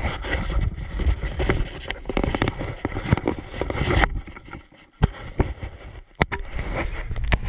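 Rumbling and clattering of a camera being handled against a plastic kayak, with dense knocks for the first few seconds. After that come a few separate sharp clicks and knocks.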